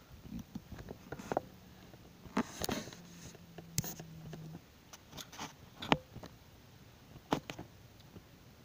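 Handling noise as plastic fashion dolls are moved by hand in grass: scattered clicks and short rustles, with a low steady hum that stops a little past halfway.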